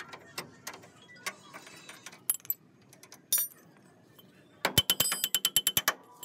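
Ratchet spanner working a stay bolt on a three-wheeler's rear suspension stay: a few separate sharp metal clicks, then, near the end, a fast run of about ten ringing clicks a second for over a second as the ratchet is swung.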